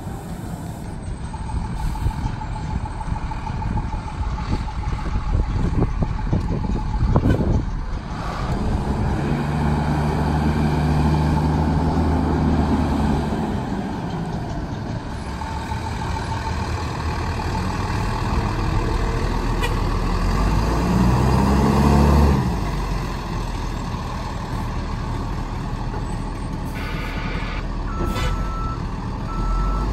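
Fire engine's diesel engine running as it drives up the road, growing louder as it comes alongside and pulls to a stop. Near the end an air brake hisses and the reversing alarm starts beeping about once a second as it prepares to back in.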